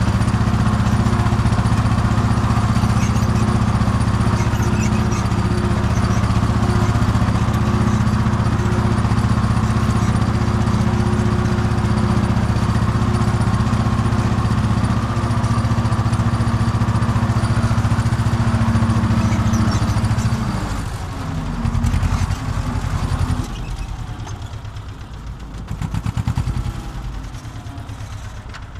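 Farm tractor's diesel engine running steadily at working revs. About twenty seconds in it is throttled back to a lower, uneven idle, with separate firing beats and the level dipping and swelling.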